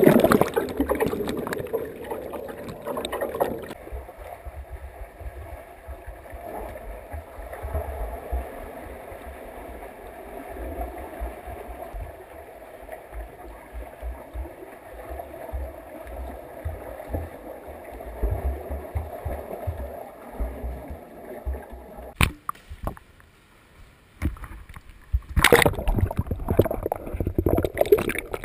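Pool water heard through a submerged camera: loud rushing and bubbling at first, then a long muffled stretch of low rumbling and knocks. A few sharp clicks and a brief near-quiet come near the end, then loud splashing and rushing water again.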